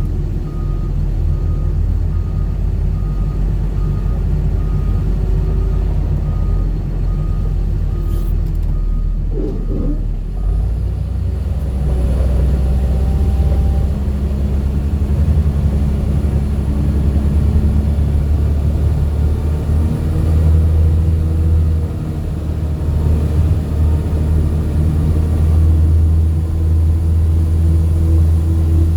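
Heavy diesel machine engine running loudly and steadily, with a repeating electronic beep alarm for about the first ten seconds. The engine note changes about ten seconds in and again about twenty seconds in.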